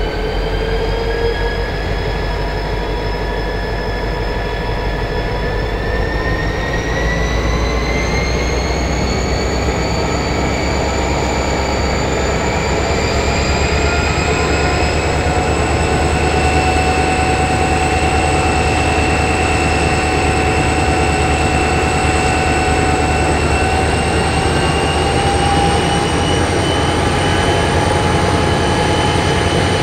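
BL class diesel-electric locomotive with an EMD 16-645 turbocharged two-stroke engine, working under load as it gets a train of empty grain wagons under way. Steady heavy engine noise, with a whine that rises in pitch from about six to sixteen seconds in and then holds steady as the locomotive picks up.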